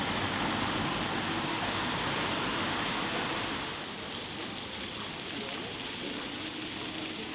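Steady hissing outdoor ambience with no distinct events, easing slightly about four seconds in.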